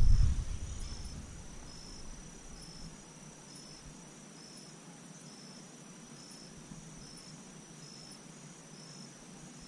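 Insects chirping in the grass: a steady high-pitched trill with a short chirp repeated a little more than once a second. A low rumble dies away over the first two seconds.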